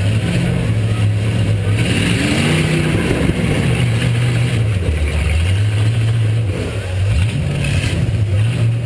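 Demolition derby car's V8 engine running loudly, its pitch rising and falling as it is revved, with a shift in engine note about two seconds in and again near seven seconds.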